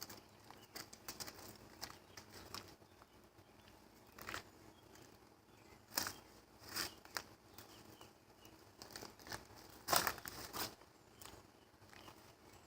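Scattered short rustling and crunching noises, a dozen or so irregular crackles with the loudest about six and ten seconds in.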